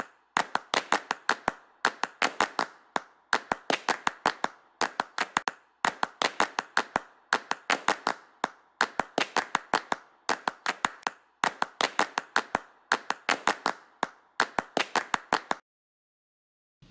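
Rhythmic clapping soundtrack: quick clusters of five or six sharp claps repeating in an even pattern about every one and a half seconds, stopping suddenly about a second before the end.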